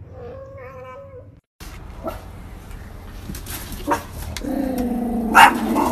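A ragdoll cat meows once, about a second long. After a break, a dog starts a low, drawn-out vocalization about four and a half seconds in, with a sharp click shortly after.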